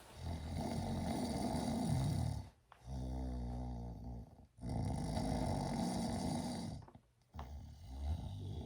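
A person snoring loudly in long, rasping breaths of about two seconds each, three in all. Between the first two comes a lower, steadier buzzing breath.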